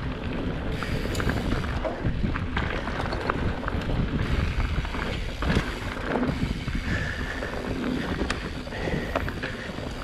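Wind buffeting the microphone of a mountain bike's camera, with the rattle and knocking of the bike rolling over a rocky dirt singletrack.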